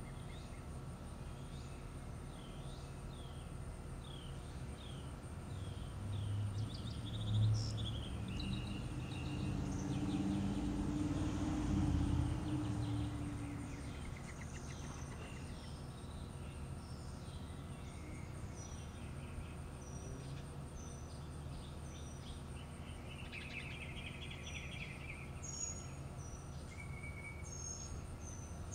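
Birds chirping in short, repeated calls over a steady background hiss. A low rumble swells and fades for several seconds about midway.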